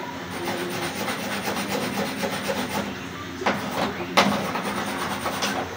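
Steady scraping or rubbing with fine rapid ticks, and two sharp knocks a little past halfway.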